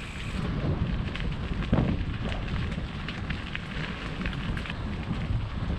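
Mountain bike riding over a rough dirt trail: tyres crunching, with many short clicks and clatters from the bike, and wind noise on the action camera's microphone.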